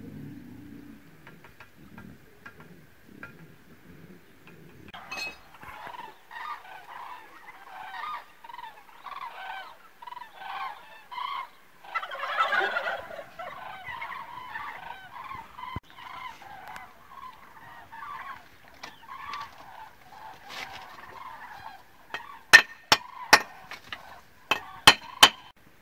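A flock of birds calling over and over, many calls overlapping, loudest about twelve seconds in. Near the end comes a quick run of sharp clicks.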